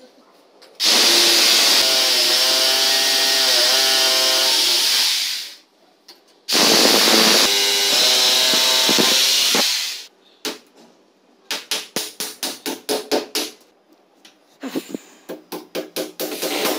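Corded electric drill boring through a wooden mounting rail into the wall in two long bursts, its motor pitch dipping under load. This is followed by a hammer striking in quick runs of blows, several a second.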